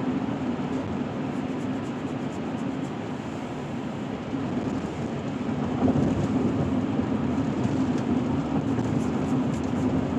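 Steady road and engine noise inside a moving car's cabin, with a short thump about six seconds in.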